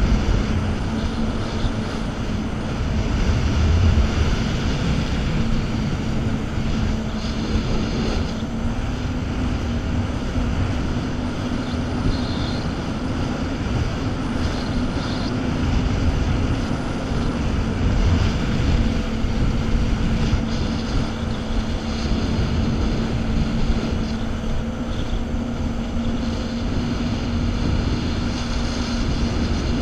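Jet ski engine running steadily at speed, its pitch holding even throughout, with wind buffeting the microphone.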